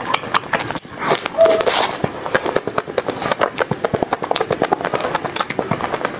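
Chewing and biting of a chocolate-coated ice cream bar: the thin chocolate shell crackling in many quick clicks, loudest about a second and a half in.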